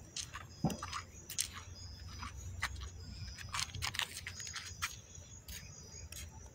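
Irregular clicks, rubs and knocks of a phone being handled and carried on the move, over a low steady hum, with faint high-pitched tones coming and going.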